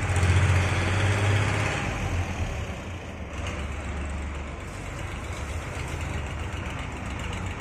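An engine idling with a steady low hum, loudest for the first two seconds, then easing to a lower, even level.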